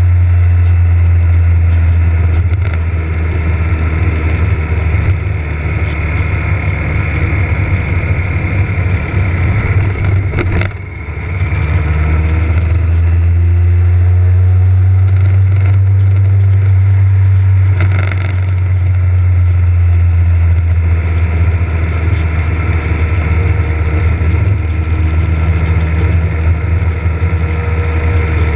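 Motorcycle engine running under way on the road, a steady low drone whose pitch rises and falls slowly with the throttle. It drops off briefly about ten seconds in and eases again near eighteen seconds.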